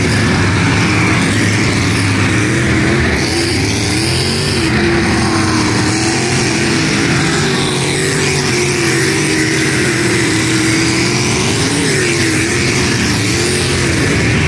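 Race car engines running as the cars lap the track: a loud, continuous engine sound whose pitch wavers gently up and down as the cars go around.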